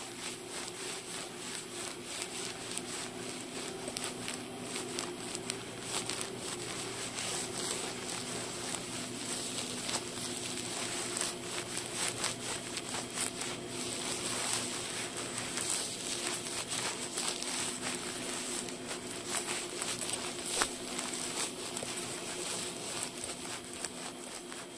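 Nylon shell fabric of a Patagonia DAS Light Hoody being squeezed and scrunched by hand, making a continuous crisp crinkling and crackling. It is the crackle that this face fabric makes around the ears when the hood is worn, a rather unpleasant sound.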